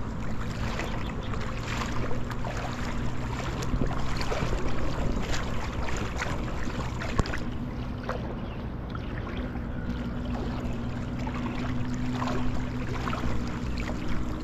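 Water sloshing and lapping around a person's legs as he wades slowly through a shallow river, with small irregular splashes over a steady low rumble.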